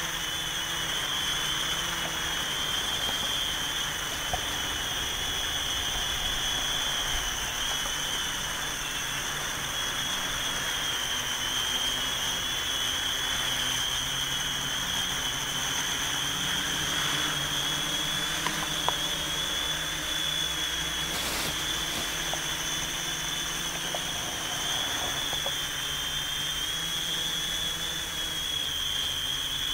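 WOV Y6 hexacopter's electric motors and propellers running in flight: a steady high whine that wavers slightly in pitch over a hiss, with one brief click about two-thirds of the way through.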